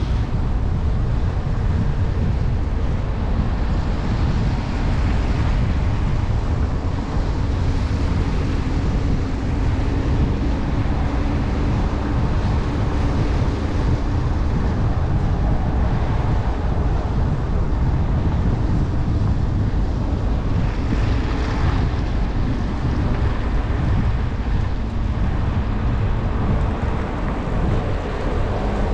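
Jeep SUV driving on a mountain road: steady tyre and wind noise with a faint engine hum, and wind rushing over the microphone.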